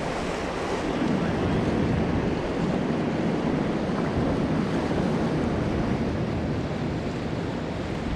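Steady rush of river water in a dam tailwater, with wind noise on the microphone.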